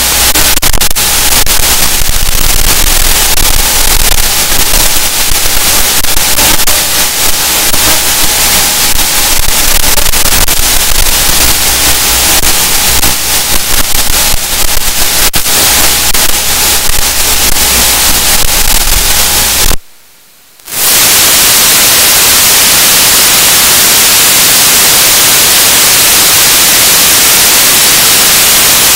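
Loud white-noise static recorded by an Aomway DVR/video receiver on its audio track, the fault that makes its recordings painfully loud. It crackles over a faint steady tone at first, cuts out suddenly for about a second about 20 seconds in, then returns as a smooth steady hiss.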